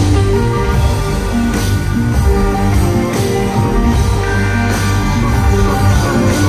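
Loud live electronic music from the stage: a heavy bass line under held keyboard chords, with crashes every second or two.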